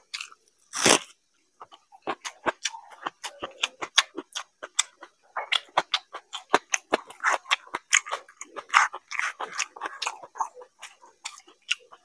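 A person chewing a mouthful of rice and curry close to the microphone: quick wet crunches and lip smacks, with one louder crunch about a second in.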